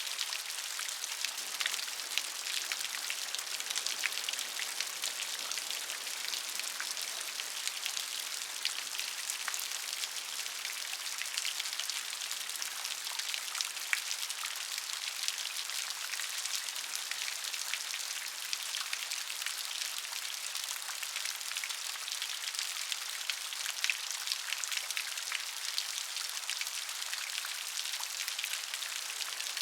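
Steady rain falling, an even hiss peppered with many small drop ticks on a hard surface.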